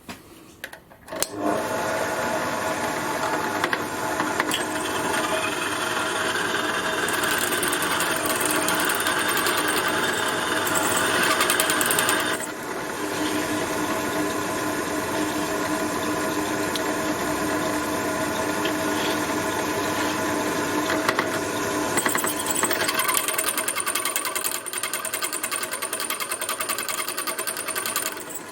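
Drill press switched on about a second in, its motor running steadily while drilling the gas jet hole into a furnace burner fitting, with a brief dip in level around the middle.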